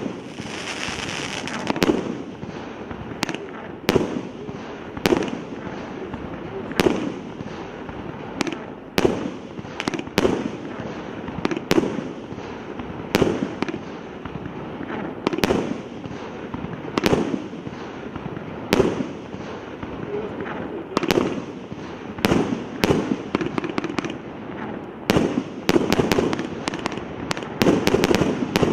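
A 300-shot multi-calibre fireworks cake (0.8, 1 and 1.2 inch tubes) firing: a sharp bang about every second or so over continuous crackling, with the shots coming faster near the end.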